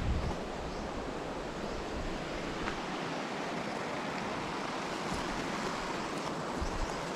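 Wind buffeting the microphone over a steady rushing hiss, with low rumbles near the start and again near the end.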